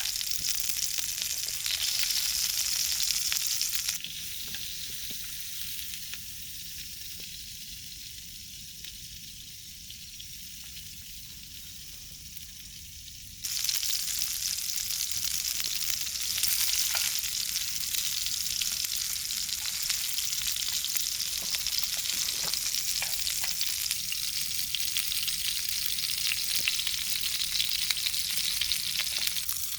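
Food sizzling as it fries, a steady crackling hiss with occasional light clicks. It drops quieter about four seconds in and comes back louder near the middle.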